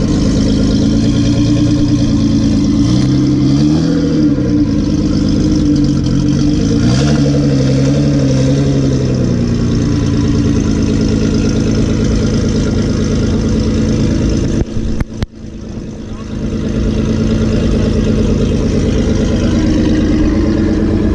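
Modified Nissan GT-R R35's twin-turbo V6 idling through its aftermarket exhaust, with a couple of light throttle blips in the first half where the engine note rises and falls. About three-quarters through, the sound briefly drops away with a couple of clicks.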